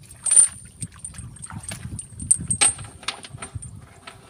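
Wet mud squelching and splashing as a person steps and shifts about in deep mud, with scattered sharp clicks and knocks. The loudest splash comes about half a second in.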